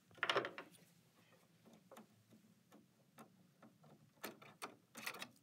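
Light, irregular clicks and taps of plastic and metal as a presser foot is handled and fitted at the presser bar of a Janome Skyline 6 sewing machine, with a few quicker clicks near the end.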